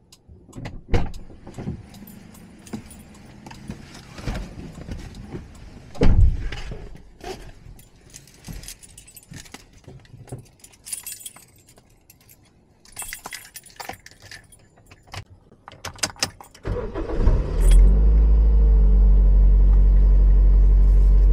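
Keys jangling and clicking inside a Toyota Vios's cabin, with a heavy thud about six seconds in as the driver's door shuts. Then, about seventeen seconds in, the engine cranks, starts and settles into a steady idle.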